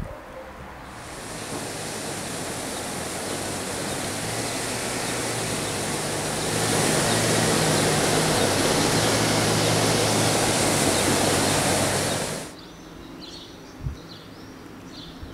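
Water gushing and churning as it pours into a river, a steady rushing noise that builds about a second in, grows louder about halfway through, and cuts off suddenly. Faint short chirps, likely birds, follow near the end.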